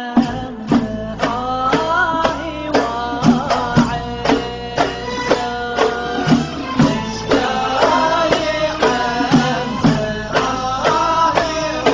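Music with a steady drum beat, about two strikes a second, under a bending melodic line.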